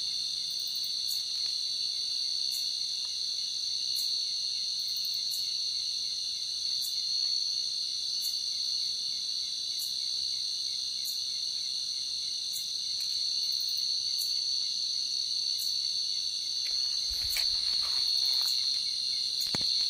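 Chorus of night insects: a steady, high-pitched trill with faint ticks about once a second.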